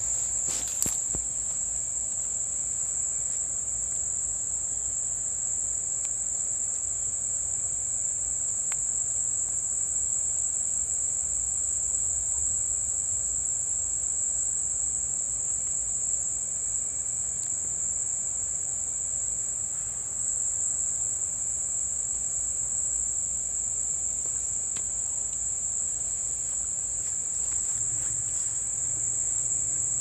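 Steady, high-pitched chorus of insects, the kind of late-summer chirring of crickets heard under trees, with a couple of faint clicks about a second in.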